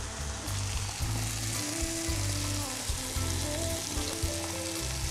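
Thin chicken breast slices sizzling steadily as they fry in a hot pan, with quiet background music underneath.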